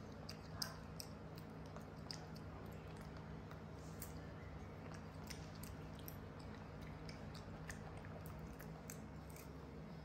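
A young macaque chewing a piece of soft yellow fruit: irregular small wet clicks and smacks over a faint steady hum.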